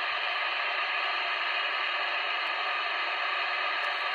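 Steady hiss of static from an FM CB radio's speaker with the squelch open, and no voice coming through.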